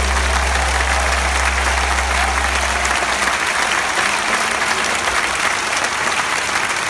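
Large stadium crowd applauding as the song ends. A low sustained tone under the applause stops about three seconds in.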